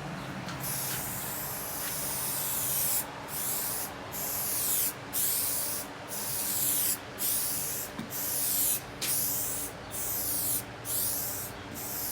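Rust-Oleum 2X aerosol spray-paint can hissing as paint is sprayed in strokes over a car hood. One unbroken spray of about two seconds, then about one-second sprays with short breaks between passes.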